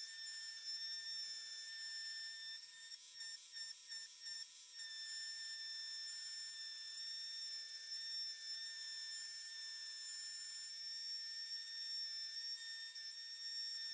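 Small high-speed rotary tool running with a steady high whine while its engraving bit cuts copper traces into a PCB. The whine dips briefly a few times about three to four and a half seconds in.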